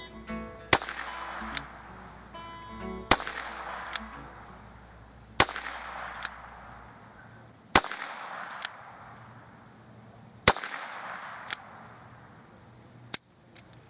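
Six shots from a Ruger Wrangler .22 LR single-action revolver, fired one at a time about every two and a half seconds, the last one a little softer. A lighter click follows each shot about a second later as the hammer is thumbed back for the next shot.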